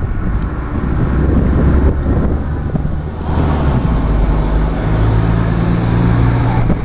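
Street traffic: a motor vehicle's engine running close by, a steady low hum that changes pitch partway through, over general street noise.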